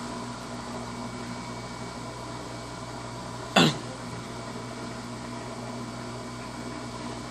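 Electrolux LT15F washing machine running with a steady electrical hum. There is one sharp click about halfway through.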